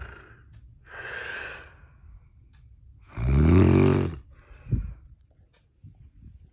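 A woman snoring in her sleep: a breathy, hissing breath about a second in, then a loud rattling snore lasting about a second around three seconds in, followed by a short snort.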